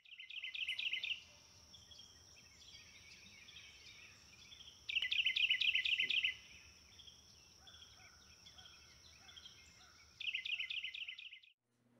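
Birdsong: a bird repeats a quick trilled phrase of about a second three times, about five seconds apart, with softer chirps from other birds between and a steady high-pitched whine underneath.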